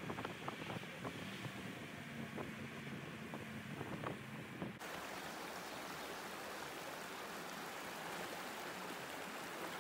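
Road and engine noise inside a moving vehicle, a low steady hum with a few light clicks. About five seconds in it cuts abruptly to the steady rush of a shallow stream running over rocks.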